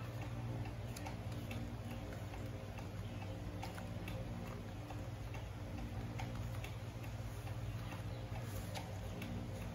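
A sheet of paper being folded and creased by hand, giving soft, irregular clicks and taps over a steady low hum.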